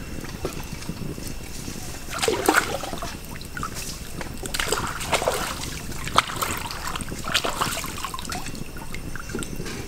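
Water splashing and sloshing in a shallow stream in several short bursts, over a steady background of running water.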